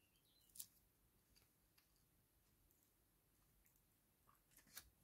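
Near silence, with a faint click about half a second in and a few softer ticks near the end, from Scotch tape being pulled and pressed onto a glued porcelain repair.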